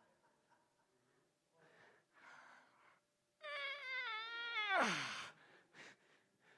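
A man's loud, wavering high-pitched wail without words, held for about a second and a half, then sliding steeply down in pitch into a short breathy rush.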